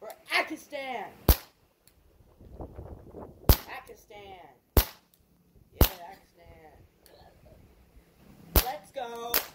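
Air pistol firing about six sharp cracking shots, spaced irregularly a second or two apart.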